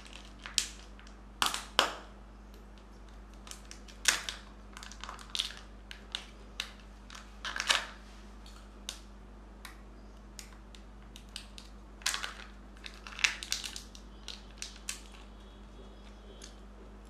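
Crinkling and crackling of a Kinder Joy egg's plastic shell and foil seal being peeled open by hand, with sharp clicks of the plastic in irregular clusters that die away near the end.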